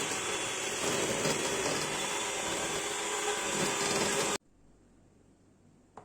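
Small electric kitchen appliance motor running steadily, then switched off abruptly about four and a half seconds in.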